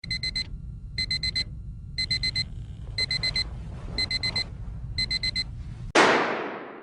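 Digital alarm clock beeping: quick runs of four high beeps, one run each second, six times over. About six seconds in, the beeping gives way to a sudden loud noise that fades away over about a second.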